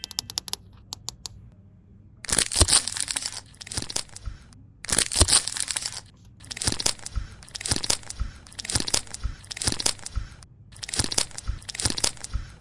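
Crinkling, crackly handling noise in repeated bursts, full of small clicks, as hands work with toy playset pieces.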